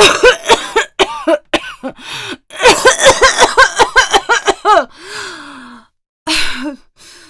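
A young woman's acted coughing fit. A few coughs come first, then a rapid run of about ten coughs in a row, then a falling, voiced breath out and one more cough near the end. It is performed as a persistent cough that won't go away.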